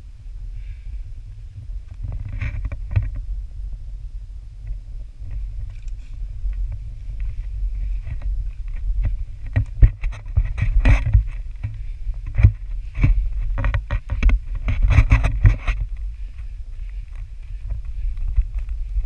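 Low rumble of wind and handling on a handheld GoPro's microphone, with scuffs and knocks of footsteps and hands on rock, thickest in the middle of the stretch while scrambling over boulders.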